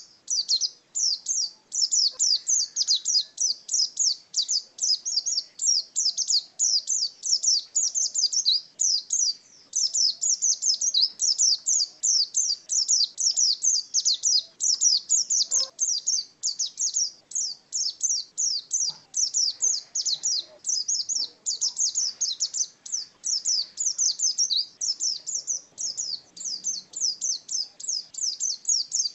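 Pleci dakun white-eye from Merapi singing a long, almost unbroken run of fast, high chirping notes, several a second with only short breaks. This is the bird in full, vigorous 'ngalas' song.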